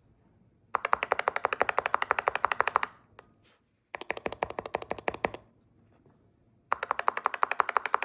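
Keystrokes on a Finalmouse Centerpiece gaming keyboard: three runs of rapid, evenly spaced key clicks, each lasting about one and a half to two seconds, with short pauses between.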